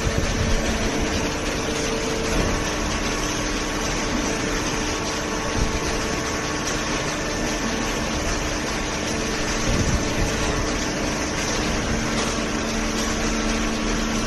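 Hydraulic cardboard baler's pump running with a steady mechanical whir and hum. Its hum tones change about two and a half seconds in and again near the end.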